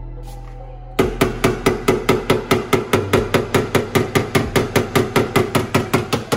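Hammer blows, struck rapidly and steadily at about five a second, starting about a second in.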